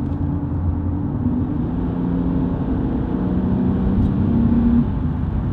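Nissan 370Z's 3.7-litre V6 on its stock exhaust, heard from inside the cabin while driving: a low engine drone under road noise, the engine note climbing in pitch from about a second in and easing off near the end. The stock exhaust is barely heard at all.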